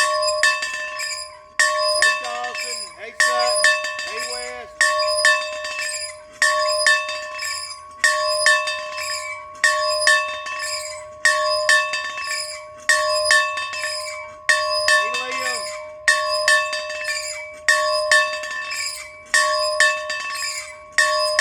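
A bell ringing, struck over and over at an even pace, each stroke ringing on and fading into the next.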